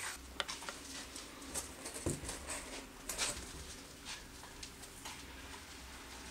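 Faint scattered clicks and taps from hands working a filler tube and pressing paste into a crack in a wooden bowl's rim, over a low steady hum.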